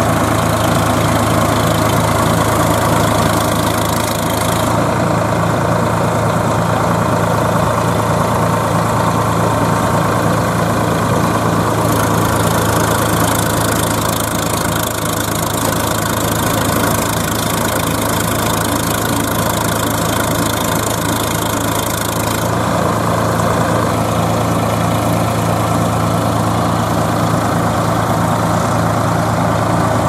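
Swaraj 963 FE tractor's diesel engine running steadily at idle, with a higher hiss over it that drops and returns a few times.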